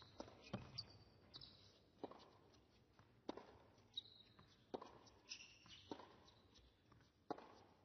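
Faint bounces of a tennis ball on an indoor hard court, spaced about a second apart, as the server bounces it before serving, with a few short high squeaks in between.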